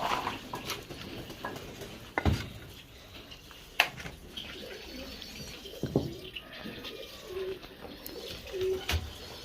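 Domestic pigeons cooing in low, short calls, with a few sharp knocks or clicks, the loudest about two and four seconds in.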